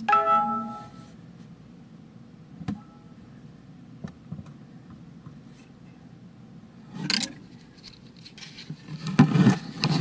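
Handling noise of a camera held against a 3D printer's underside: a short pitched tone at the very start, a single click near three seconds in, a brief scrape at about seven seconds, then heavier rubbing and scraping near the end as it is moved around.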